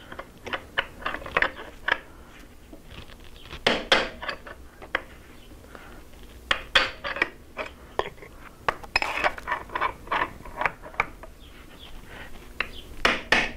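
Hammer striking a steel punch set against a steering stem bearing race in a Honda CRF250 frame: a run of light metallic taps in uneven clusters, the hardest near the end, as the punch is moved around the race's lip to drive the old race out.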